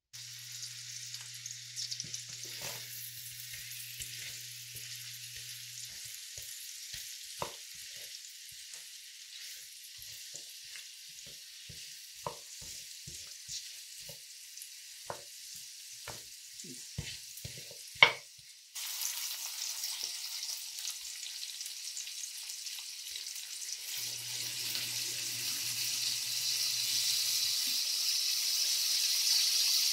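Sliced red onion, garlic and a green chili sizzling in hot oil in a stainless steel pan, with a wooden spoon stirring and knocking against the pan now and then. There is one sharp knock a little past halfway, and right after it the sizzle turns suddenly louder and fuller and keeps building toward the end.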